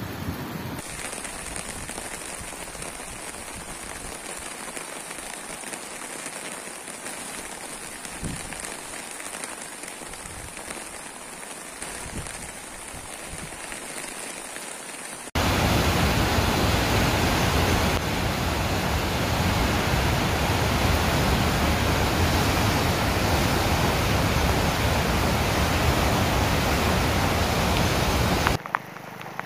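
Rain falling, a steady wash of noise. About halfway through, an abrupt cut brings a much louder, fuller rush of rain.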